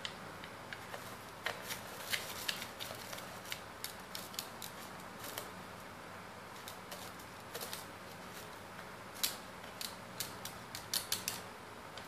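Black-capped lory digging through dry rice in a clear plastic tub: irregular sharp clicks and rattles of grains, beak and feet against the plastic, coming in clusters with short pauses.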